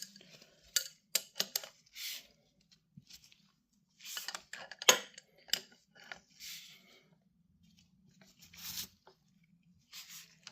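Small steel parts of a chain riveting tool clinking and scraping as the tool is handled and its backing plate fitted: scattered sharp clicks and short scrapes.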